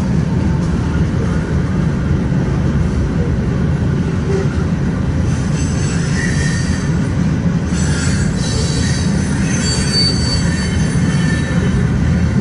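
Freight cars of a BNSF manifest train rolling past close by, a steady heavy rumble of wheels on rail. From about halfway through, thin high-pitched squeals come from the running gear.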